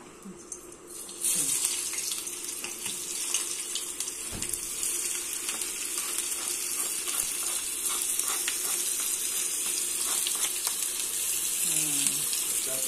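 Sliced shallots and chili frying in hot oil in a wok, a steady sizzle with small crackles that starts suddenly about a second in as they hit the oil.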